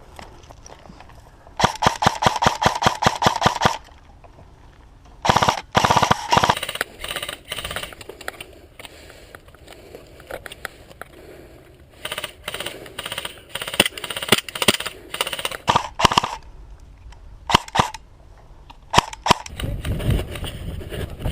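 Airsoft electric guns firing rapid full-auto bursts: a long burst of about two seconds near the start, a shorter one a few seconds later, then scattered short bursts and single shots.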